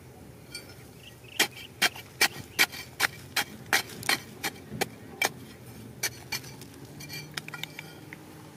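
Small metal hand spade chopping into dry, stony soil: about ten sharp strikes in an even run, two to three a second. Then a couple more strikes and a few lighter clicks of loose stones and grit near the end.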